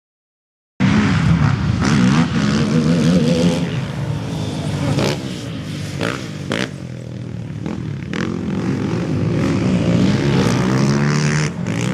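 Racing quad bike (ATV) engines revving hard on a dirt motocross track, the pitch rising and falling with throttle and gear changes. The sound cuts in abruptly just under a second in.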